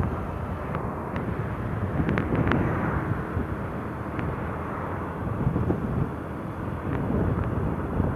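Wind rushing over the microphone together with the running noise of a motorcycle being ridden along a road, loud and steady with a few faint clicks.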